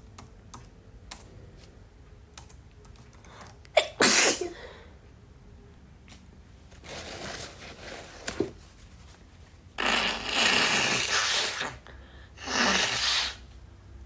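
A woman with a head cold sneezing repeatedly in a sneezing fit: a sharp sneeze about four seconds in and a long, loud run of sneezing near the end. Faint computer keyboard clicks come between the sneezes.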